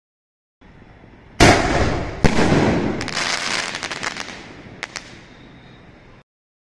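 NSV Fireworks 'Earth' 1.75-inch sky shot shell bursting overhead: a sharp bang about a second and a half in, a second bang just after, then a dense crackle and a couple of small pops as it fades.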